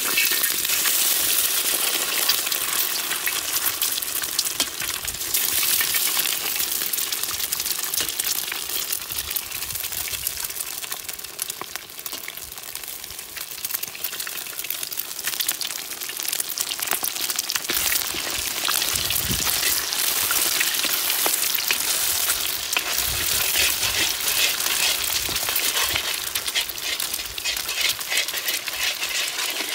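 Eggs frying in hot oil in a large black wok: a dense sizzling and crackling that starts suddenly as they hit the oil. Near the end a metal ladle stirs and breaks them up.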